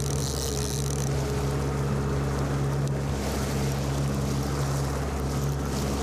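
Motorboat engine running steadily at trolling speed, with a hiss of wind and water over it.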